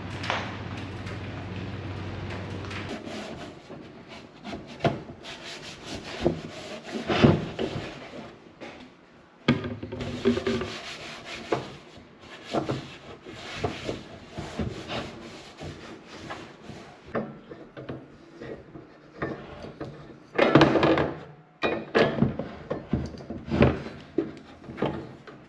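Irregular rubbing and scraping as a Mr. Heater Buddy portable propane heater is wiped down with a disinfecting wipe and handled on a wooden workbench, with short knocks of its plastic case against the wood. A steady low hum stops about three seconds in.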